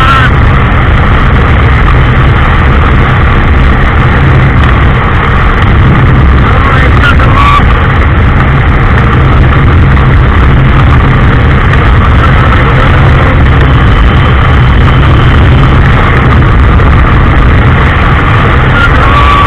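Heavy, steady wind buffeting on the microphone of a motorcycle riding at speed, mixed with the Honda SP 125's single-cylinder engine running.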